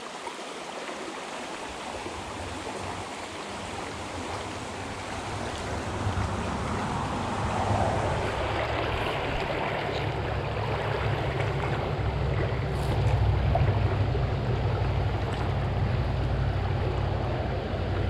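Shallow creek water running over rocks, a steady rushing. From about six seconds in a low rumble comes in under it, wind buffeting the microphone.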